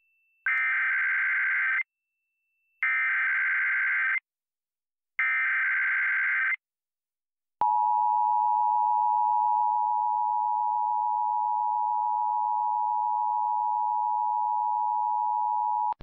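Emergency Alert System SAME header: three identical bursts of buzzy digital data tones, each just over a second long, about a second apart. Then the steady two-tone EAS attention signal (853 and 960 Hz) cuts in about halfway through and holds, announcing a Required Monthly Test.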